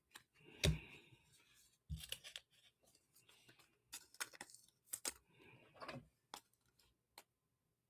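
Trading cards and their packaging handled on a table: faint rustling, scraping and light clicks, with a soft thump just under a second in and another about two seconds in.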